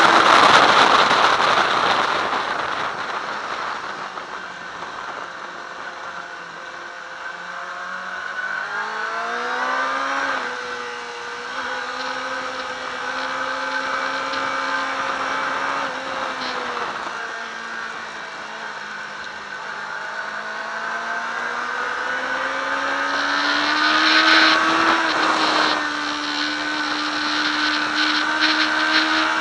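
Sport motorcycle engine heard from an onboard handlebar camera, with wind rushing over the bike. The engine is loud at first, then its pitch drops as the rider slows for a corner. It climbs again about eight seconds in and once more past the twenty-second mark as the bike accelerates out of the bends.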